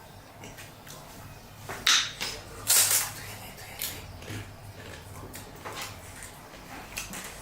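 Eating sounds from pani puri: short crunchy, noisy bits of biting and chewing, with the two loudest about two and three seconds in and smaller clicks between.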